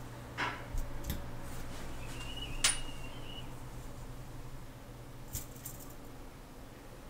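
Sparse small metallic clicks and taps as tweezers set parts into a Rolex 3035 watch movement, the loudest about two and a half seconds in, over a steady low hum.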